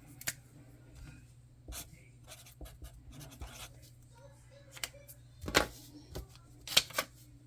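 Pen writing on paper, a run of small scratches and taps, with two louder handling noises about five and a half and seven seconds in.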